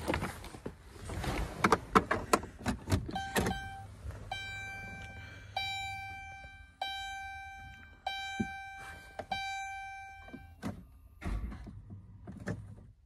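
Inside a 2012 Dodge Grand Caravan that won't start, a run of sharp electrical clicks sounds as the key is tried. Then a dashboard warning chime dings about six times, roughly a second apart, each note fading, with a few more clicks near the end. The owner takes the no-start for loose battery cables.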